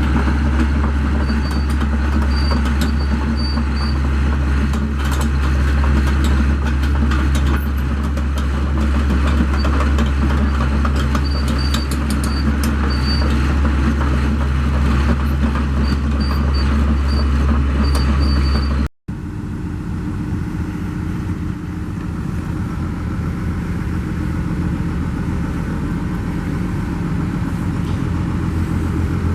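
Daewoo DH130 excavator's diesel engine running steadily at idle. About two-thirds of the way through, the sound cuts out for an instant, then carries on a little quieter.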